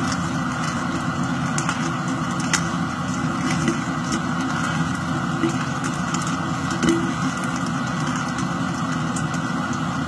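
A steady, even hum, with a few faint clicks of a Rubik's cube's plastic layers being turned.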